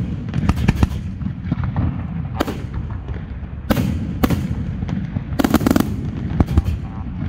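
Fireworks display: a dense, continuous low rumble of shells launching and bursting, broken by sharp, loud bangs about a dozen times, with the heaviest cluster about five and a half seconds in.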